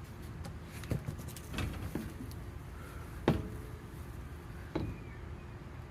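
A handful of separate knocks and clunks, the loudest about three seconds in, as a wheel is worked onto the car's front hub.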